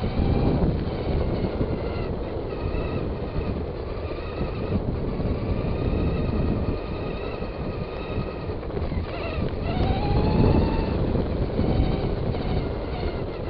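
Traxxas Stamped RC car's electric motor whining, its pitch rising and falling with the throttle, with a strong sweep up and back down about nine to ten seconds in, over a rough rumble from the car rolling over the ground.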